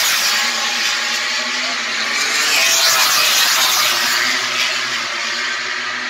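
MotoGP racing motorcycles' four-cylinder engines at high revs as they go by on the straight, their pitch falling as they pass.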